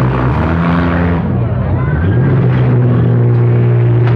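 Four-cylinder demolition derby car engines running and revving; the engine pitch dips about a second in, climbs back up, and rises again near the end.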